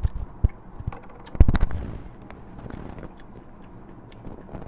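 Close-up noodle slurping: a loud slurp about a second and a half in, with small clicks and smacks from the mouth and spoons around it.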